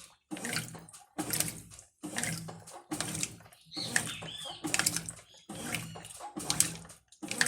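Brastemp Ative top-loading washing machine agitating: the agitator reverses about once a second, each stroke bringing a surge of water sloshing over a low motor hum.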